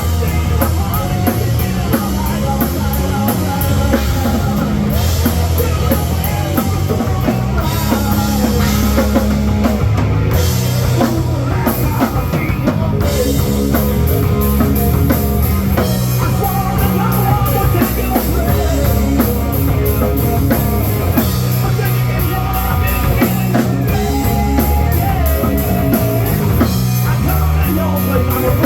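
Hard rock music: a band playing with a full drum kit and electric guitar, loud and unbroken.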